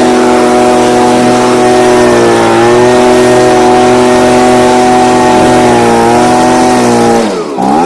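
Stihl BG55 handheld two-stroke leaf blower held at full throttle, a loud, steady high-revving whine with slight dips in speed, then throttled back near the end. It runs strong on its new replacement carburetor after the high-speed (H) screw was adjusted.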